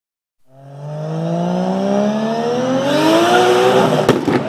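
Car engine accelerating hard, fading in and rising steadily in pitch, then a sharp click about four seconds in and the pitch drops, as on a shift up a gear.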